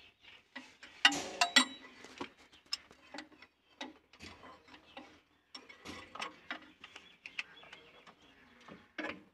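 Scattered metallic clicks and knocks of hand work on an engine's timing belt and tensioner, with a louder cluster of knocks about a second in.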